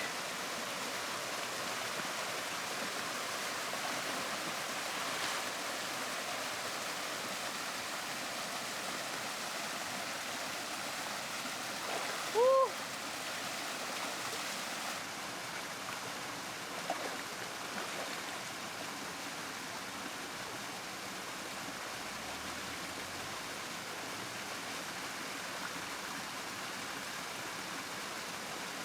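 River water flowing steadily, with one short, pitched call about twelve seconds in.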